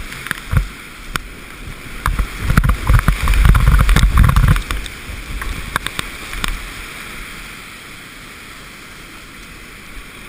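Kayak running whitewater rapids: rushing, splashing water with sharp spatters of spray hitting the camera. From about two to four and a half seconds in, water washes over the camera in a loud, low, muffled buffeting. After that the water settles into a steady rushing hiss.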